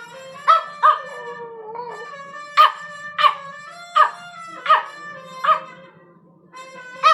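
A miniature pinscher howling along to a trumpet: held tones, with about eight short, loud howl notes that slide down in pitch, mostly in pairs.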